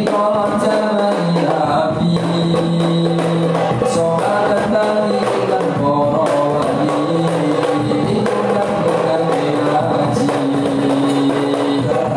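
Rebana frame drums played together in a steady rapid rhythm, under group singing that holds long notes of a melody.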